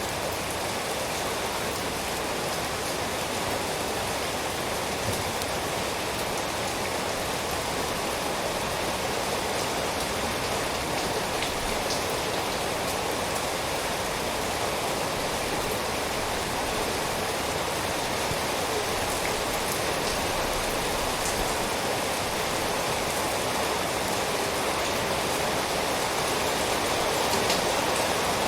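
Steady rain falling, a continuous even hiss with occasional individual drops ticking through it.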